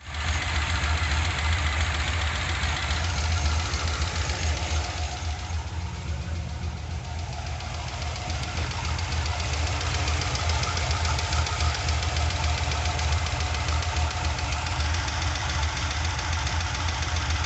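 2002 Corvette's LS1 V8, fitted with a Brian Tooley Stage 2 camshaft, running steadily at idle with a fast, even ticking over the engine note. The owner is unsure whether this tick is normal for the new cam.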